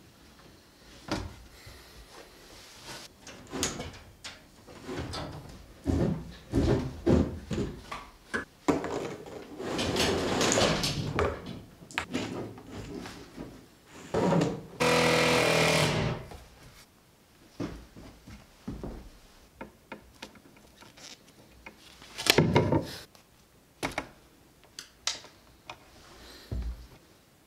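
Knocks, taps and rustling from hands working cable along a wood-framed wall, with a steady machine whir lasting about a second just after the middle.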